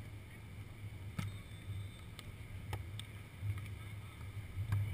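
Wind buffeting an action camera's microphone: a low rumble that rises and falls, with a few faint sharp clicks.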